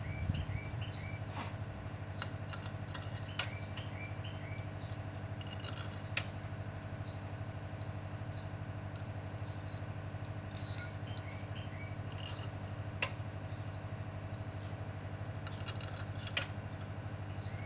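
Small birds chirping in short runs of quick notes over a steady low hum and a thin, high steady whine, with a few sharp clicks or taps scattered through.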